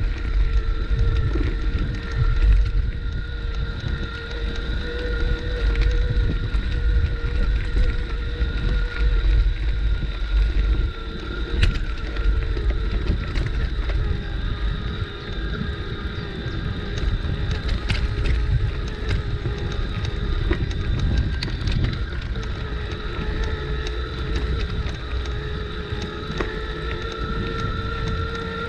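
Riding on a bicycle: wind buffeting the microphone and tyre rumble over the track, with a steady whine and scattered sharp clicks and rattles from the bike.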